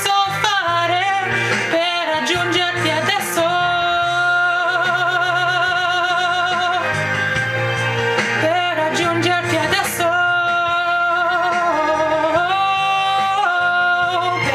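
A solo voice singing an Italian pop ballad, holding long notes with a wide vibrato.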